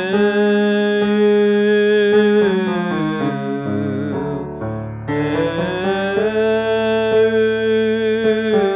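Male voice singing a vowel exercise over a held piano chord: two long sustained notes, each sliding up into the note and falling away at its end, the vowel moving from the schwa of French 'beurre' toward a forward-placed 'oo'.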